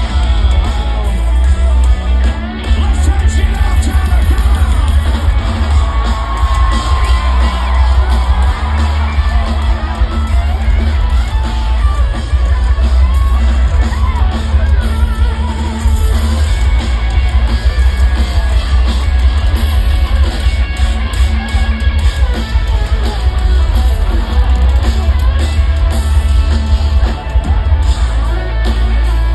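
Live country-rock band playing loudly through a festival sound system, with electric guitars, heavy bass and drums, singing, and crowd noise, heavily distorted in the low end.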